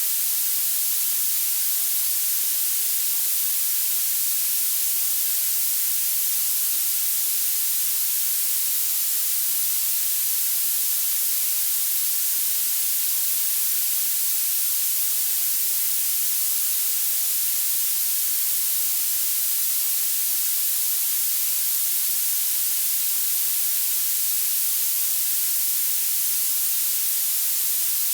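Generated violet noise: a steady, high-pitched hiss whose energy climbs toward the highest frequencies, with almost nothing in the low end.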